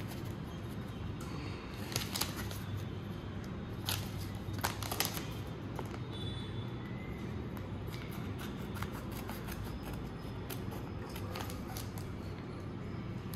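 Rustling and scattered sharp clicks of a Topps cricket trading-card pack being opened and its cards handled, over a steady low hum.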